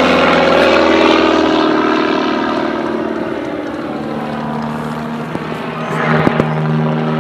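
Pitts Special S-1S biplane's 180-horsepower engine and propeller running at a steady pitch through an aerobatic manoeuvre. It fades through the middle and picks up again about six seconds in, with a couple of brief clicks.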